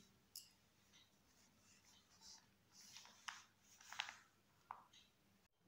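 Near silence with a few faint, short crackles and hisses, the strongest about four seconds in: hot, freshly made ghee still foaming and sizzling in a clay pot just off the heat.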